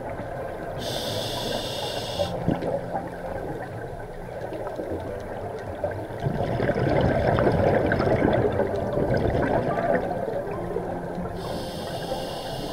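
Scuba diver breathing through a regulator underwater: a hissing inhalation through the demand valve about a second in and again near the end, with a longer, louder rush of exhaled bubbles in between.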